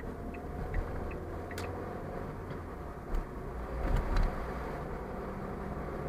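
Steady car road and engine noise inside the cabin, as the car climbs onto a viaduct. A turn-signal indicator ticks about three times a second for the first second, then stops. A few short thumps come later.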